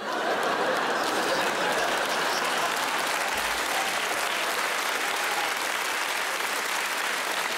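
Theatre audience applauding, mixed with laughter. The clapping breaks out suddenly and holds steady.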